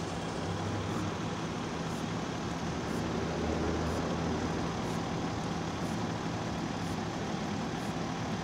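Fire engine's diesel engine running steadily at the pump panel with its hose lines connected, driving the fire pump: a constant low rumble with a steady hum.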